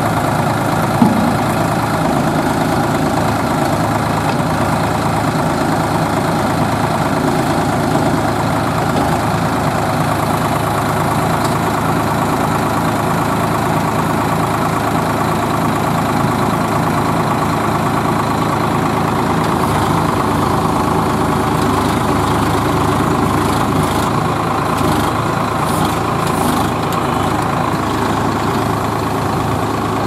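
Swaraj 963 FE tractor's three-cylinder diesel engine running steadily, powering a mounted backhoe loader, with a brief click about a second in.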